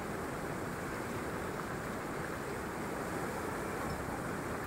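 Floodwater rushing steadily, an even noise with no breaks.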